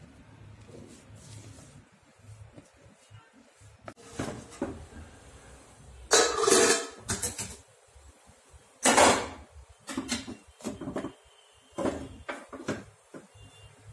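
Metal cookware clattering: a steel plate of dhokla batter and an idli steamer pot knocking and scraping together as the plate is set down into the steamer, several sharp clanks in the second half.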